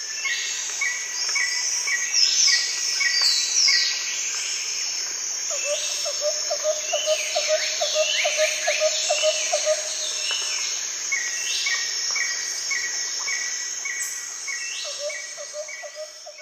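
Chorus of birds and insects: a steady high insect drone under many bird calls, among them a run of short repeated notes about two a second, falling whistles, and a low rapid trill in the middle and again near the end.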